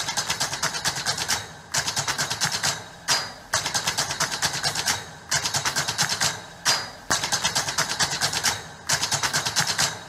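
Rapid mechanical clicking played as part of a dance soundtrack, about ten clicks a second in bursts of around a second with short pauses between them, and a short high ding twice.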